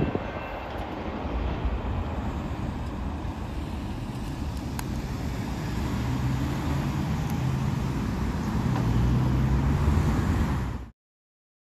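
Road traffic: cars driving past, a steady rush of tyres and engines that swells a little in the second half and cuts off suddenly near the end.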